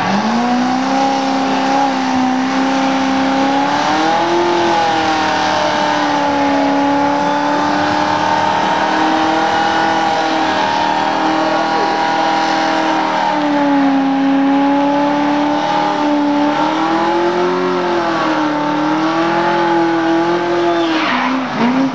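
A 1967 Ford Fairlane's 427 big-block V8 held at high revs through a burnout, its rear tyres spinning and smoking on the pavement. The revs waver up and down, dip briefly near the end, then climb back up.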